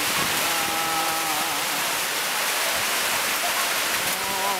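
Heavy rain pouring steadily onto a field and trees, an even hiss that does not let up.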